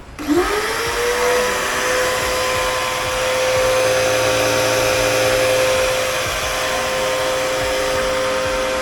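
Dylect 1900 W electric pressure washer switched on: its motor whines up to speed within about half a second, then runs at a steady pitch over a loud hiss.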